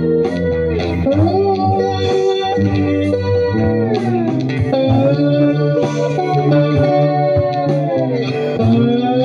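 Electric guitar on a cream Stratocaster-style solid body, playing a slow melodic line of sustained notes with smooth bends up and down between them.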